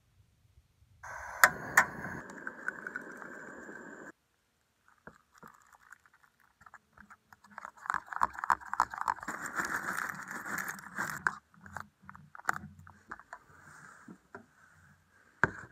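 Metal spoon stirring quickly in a bowl, scraping and clinking against its sides in a rapid clatter, then slowing to a few lighter taps near the end. Earlier, about a second in, a few seconds of rustling with two sharp clicks that cuts off suddenly.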